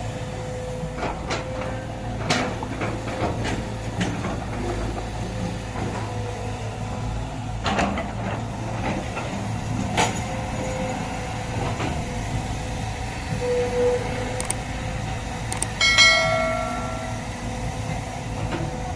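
Excavator's diesel engine running steadily under scattered sharp knocks and clanks of the working machine. Near the end there is a brief high-pitched tone, the loudest moment.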